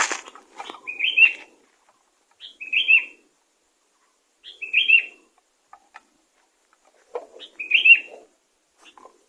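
Sooty-headed bulbul (kutilang) giving short chirping phrases, four times about two seconds apart, each with a soft rustle under it. A sharp knock at the very start.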